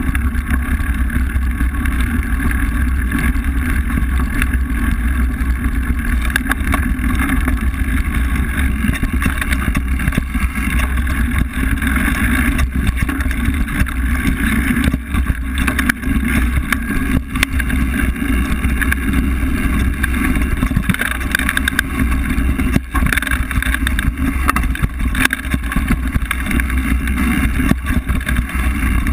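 Mountain bike rolling over a gravel forest road and then a dirt trail, picked up by a camera mounted on the bike: a steady, loud rumble of knobby tyres and frame vibration, with a few small knocks.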